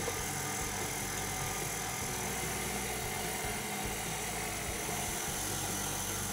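Stand mixer motor running steadily at low speed, its dough hook kneading brioche dough as pieces of butter are worked in.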